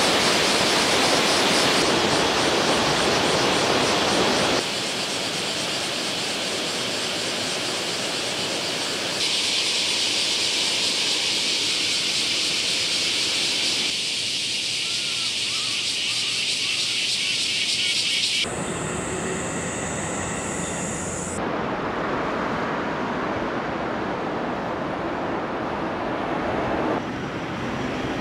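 A small stream running over stones, then a string of other steady outdoor noise ambiences that cut abruptly from one to the next every few seconds, several with a high, even hiss.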